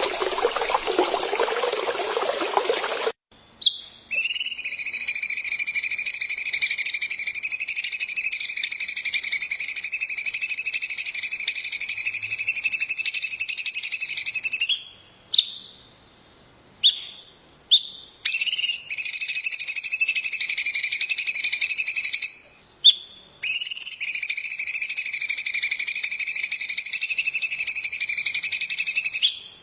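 Water trickles for the first three seconds. Then a songbird gives long, steady, high rattling trills, each held for several seconds with only short breaks and a few brief chirps between them, and the last one cuts off abruptly.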